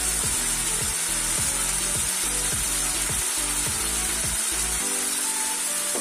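Cubes of paneer sizzling steadily as they shallow-fry in hot oil in an iron kadhai, with background music that has a steady beat.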